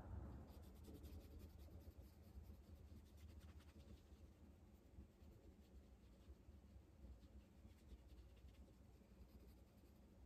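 Faint soft scratching of a watercolor brush stroking across paper, a run of light strokes thickest in the first few seconds.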